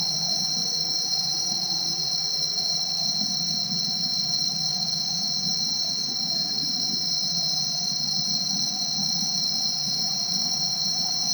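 Steady chorus of tropical insects, a constant high whine at two pitches, over the continuous rush of a waterfall and rapids.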